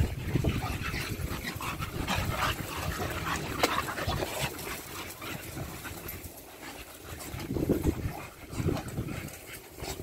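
A pack of American Bully dogs running about on grass, with irregular scuffling and a few short dog whines about eight seconds in.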